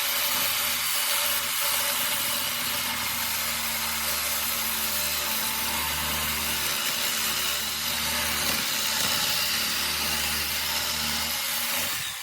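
Power saw blade cutting through a microwave magnetron's steel and copper, a steady high grinding hiss that winds down near the end.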